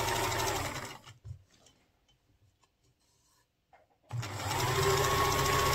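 Bernina Sport electric sewing machine stitching in two runs. It runs at speed and winds down about a second in, stops for about three seconds, then starts again about four seconds in. Its motor whine rises as it speeds up and falls as it stops.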